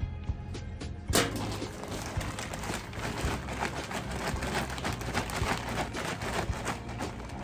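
A plastic bag of garden soil is cut open with scissors, with a sharp crackle about a second in. Then the bag rustles and crackles as the soil pours out of it.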